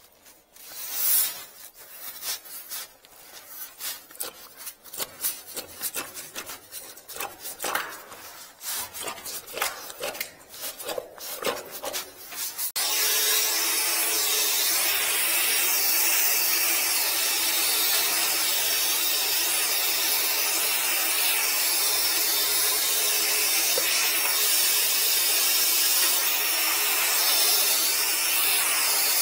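Irregular knocks and clatter of drain-cleaning gear being handled. About 13 seconds in, a drain-cleaning machine starts suddenly and runs steadily, giving a constant hum with a hiss over it as it works the blocked drain line.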